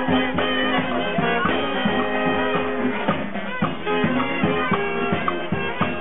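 Brass and wind instruments playing music with held notes, with scattered drum hits.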